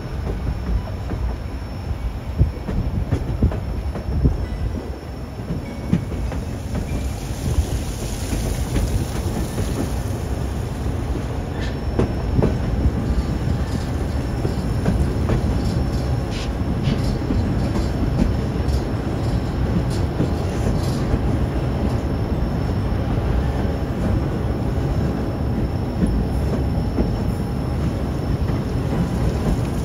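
Narrow-gauge train cars rolling along the track: a steady rumble of wheels on rail, with short clicks from rail joints and a faint high wheel squeal about a third of the way in.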